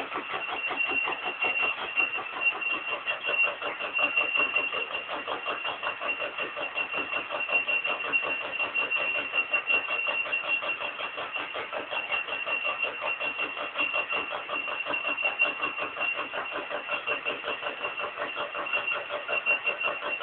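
Stamping press line running in production, a fast, even rhythm of machine strokes with a steady high tone over it.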